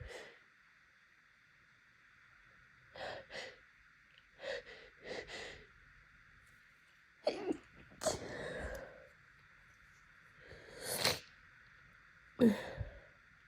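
A person's short, catching breaths and sniffs as an allergy sneeze builds up, ending in a sharp, loud sneeze near the end.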